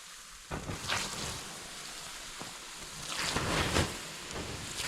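Water poured onto a small campfire to put it out, hissing and sizzling on the hot embers. It comes in surges: a sudden one about half a second in and a longer, louder one around three seconds in.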